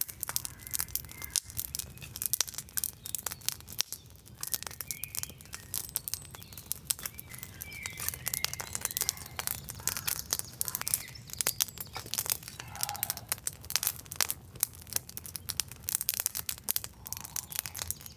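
Young campfire of dry pine twigs crackling as it catches, with a dense, irregular run of sharp pops and snaps.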